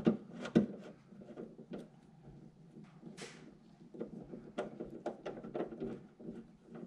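Scattered clicks and knocks of a nut driver working a spoiler nut loose on the underside of a car's trunk lid, irregular, the two loudest at the very start and about half a second in. A short hiss comes about three seconds in.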